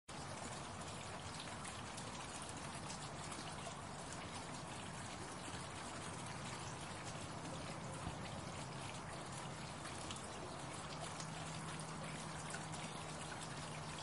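Small fountain's water splashing and trickling steadily, with fine droplet patter. Beneath it is a faint low hum of street background, a little stronger near the end.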